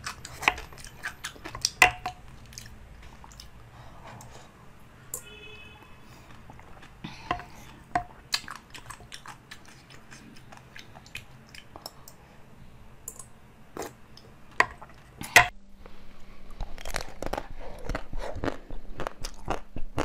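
Close-up eating sounds: jelly sucked and chewed out of plastic test tubes, with scattered sharp clicks. After a cut about three-quarters of the way in come denser, louder crunching bites of a chocolate-coated frozen bar.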